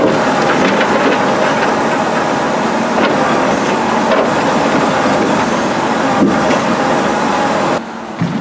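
Timber truck's hydraulic loader crane at work loading logs: the truck's engine and crane hydraulics run steadily, with a few sharp knocks of logs handled in the grapple. The sound drops abruptly near the end.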